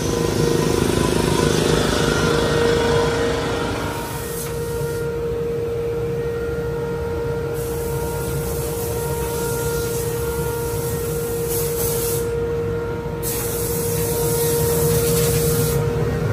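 1998 Honda Civic's four-cylinder engine idling steadily, a constant hum over a low rumble, with a high hiss that cuts in and out several times.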